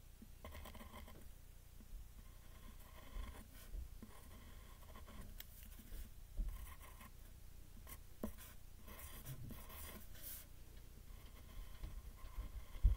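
Pencil scratching faintly on paper in short, uneven strokes as letters are written, with a few soft knocks of the hand against the paper and desk.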